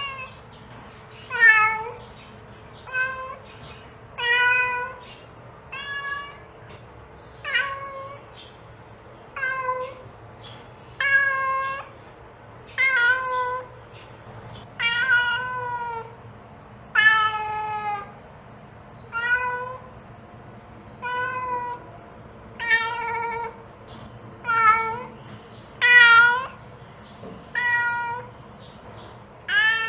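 Domestic cat meowing over and over, a short pitched meow about every one and a half to two seconds, some rising and then falling in pitch: a mother cat calling for her kittens.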